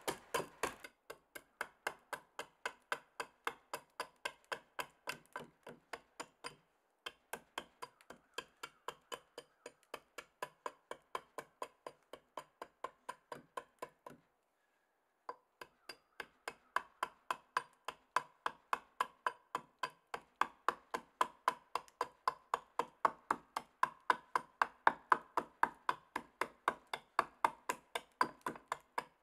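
A hatchet chopping into the end of a wooden board, shaping it to a point: quick, steady blows, about two to three a second, with two short breaks.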